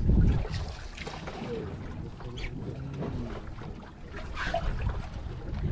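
Wind and water noise on an open boat at sea, with a loud gust of wind on the microphone at the start that then settles to a steadier rush.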